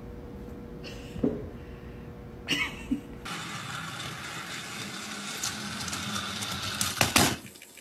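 A faint low hum, then a battery-powered toy train's small electric motor whirring steadily as it runs along its track. A few sharp knocks come near the end.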